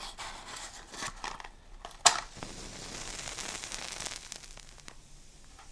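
Crackling noise with scattered clicks and one sharp crack about two seconds in, then a high hiss that swells and slowly fades.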